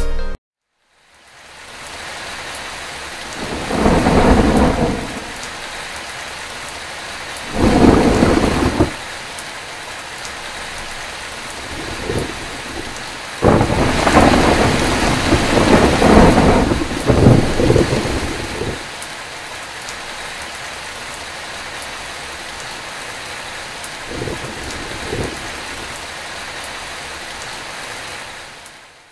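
Steady heavy rain with thunder rumbling over it, several loud peals, the longest and loudest a few seconds past the middle, and two fainter ones near the end.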